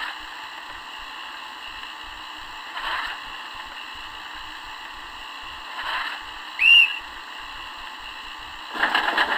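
Steam train standing at departure: a steady hiss that swells softly about every three seconds. About seven seconds in comes one short, loud, high whistle blast. Near the end a louder, fast, rhythmic sound starts up.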